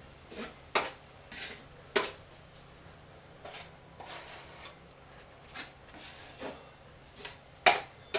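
Drywall taping knife spreading quickset setting compound over mesh tape on a ceiling patch and scraping excess off on the edge of the mud pan: a series of short scrapes, the loudest near the end.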